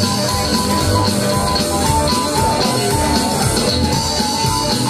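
Rock-and-roll music with guitar and drums, playing loud and continuously.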